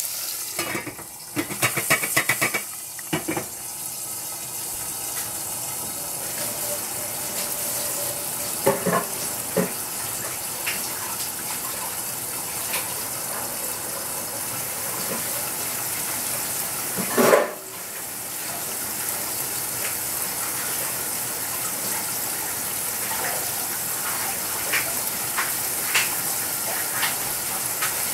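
Tofu cubes frying in oil under the lid of a stainless steel saucepan: a steady sizzle with scattered small pops. In the first few seconds the metal lid clinks and clatters onto the pan, and a little past halfway there is one short, louder crackle.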